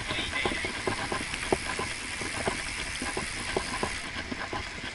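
Riding noise of a road bicycle at cruising speed: a steady rush of wind and tyre noise, with irregular sharp clicks and knocks several times a second.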